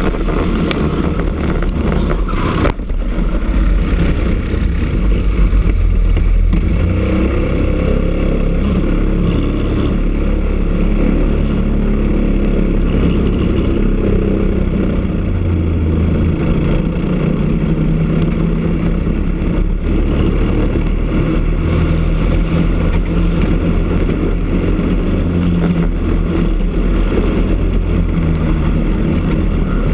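Briggs & Stratton LO206 single-cylinder four-stroke kart engine running hard, heard from on board the kart, with rushing wind noise. It eases off for a slow corner midway and pulls back up to speed; a brief sharp knock sounds about two and a half seconds in.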